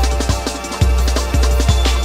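Drum and bass music: fast breakbeat drums, with sharp snare and hi-hat hits several times a second, over a deep, long-held bass line.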